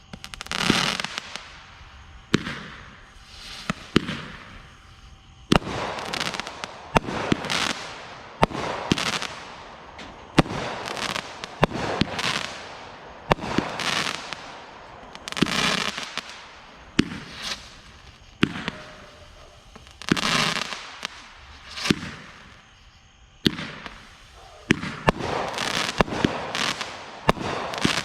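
Consumer fireworks going off in quick succession: sharp bangs every second or two, many of them followed by a second or more of crackling hiss.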